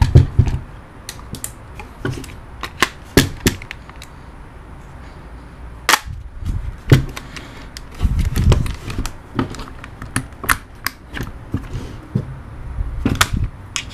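A WE MSK gas blowback airsoft rifle being reassembled by hand, its upper receiver fitted back onto the lower: a string of irregular sharp clicks and knocks of parts seating, with a few duller thuds.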